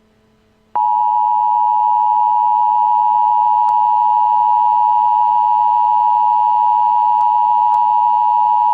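Emergency Alert System attention signal: a steady two-tone beep of 853 and 960 Hz. It starts abruptly about a second in, holds unchanged for about eight seconds and cuts off abruptly.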